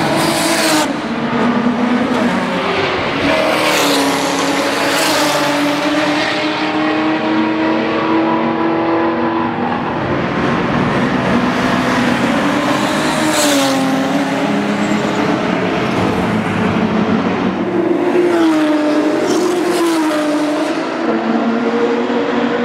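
Several track cars driving past one after another, led by a tuned, turbocharged Toyota Supra with a straight-six; the engine pitch rises and falls as the cars pass. A few sharp pops cut through at about half a second in, a few seconds in, around the middle and near the end.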